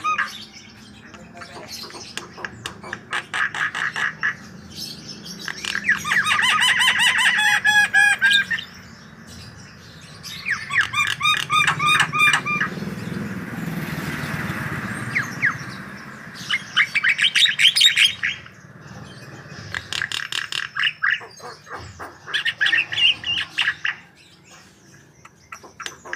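Javan myna (jalak kebo) singing: loud bursts of rapid, repeated chattering and whistled notes every few seconds, with short quieter gaps between them and a stretch of hiss about midway.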